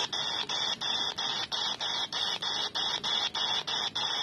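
Quansheng UV-K5(8) handheld radio's speaker hissing with 27 MHz CB-band static, cut by a short drop-out about three times a second as the receiver steps from channel to channel while the button is held.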